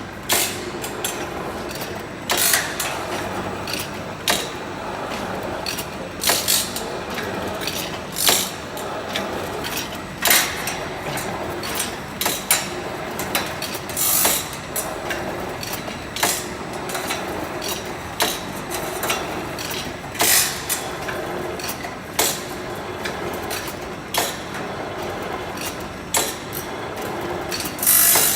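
Automatic two-sided saw-blade tooth grinding machine running its cycle: a sharp mechanical clack about every two seconds as it steps from tooth to tooth, with lighter clicks in between over a steady hum.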